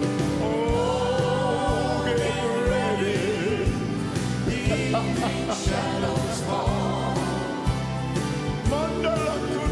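Live gospel song: piano and drums keep a steady beat while voices sing held notes with vibrato.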